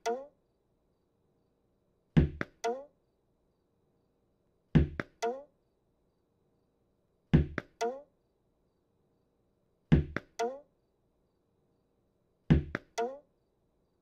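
A tennis ball thrown against a wall over and over, repeating about every two and a half seconds. Each throw is one sharp thump followed by two lighter, quicker bounces.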